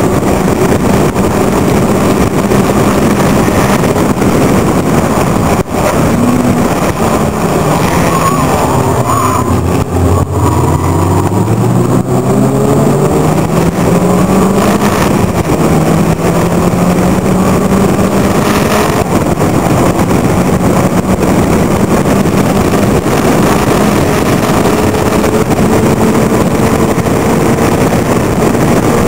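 In-car sound of a Locost club racing car's engine under hard load, with wind rush in the open cockpit. About six seconds in the revs fall away steadily for several seconds as the car slows for a corner. They then climb again, dip briefly at a gear change around the middle, and run on high and steady, slowly rising.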